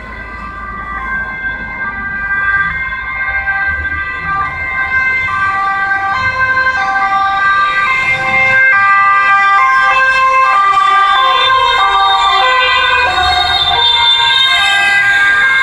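Sirens of several police cars sounding at once, their two-tone calls overlapping out of step. They grow louder over the first half and then stay loud as the cars come past.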